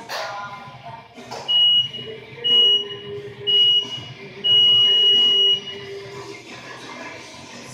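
Electronic gym timer beeping a countdown: three short beeps about a second apart, then one long beep that signals the start of the workout.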